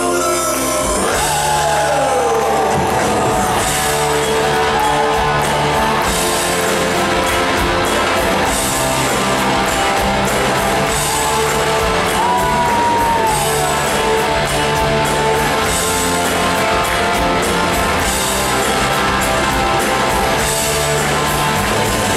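A rock band playing live: electric guitar lead over drums, bass and keyboards, with a couple of sliding, bent guitar notes.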